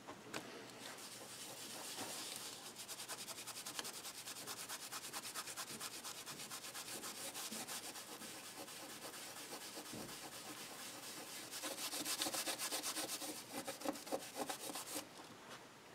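A small abrasive pad rubbed by hand over a painted metal nameplate, cleaning it up in quick back-and-forth scrubbing strokes.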